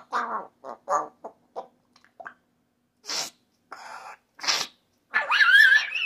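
African grey parrot vocalising: a run of short, quiet mumbled chatter, then a few short breathy noises, and near the end a loud wavering, whistle-like call.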